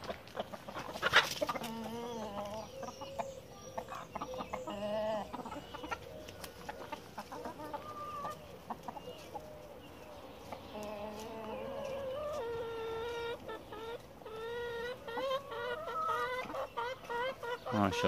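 A backyard flock of chickens clucking and calling, with rapid runs of repeated calls, several a second, in the last few seconds. A single sharp knock about a second in is the loudest sound.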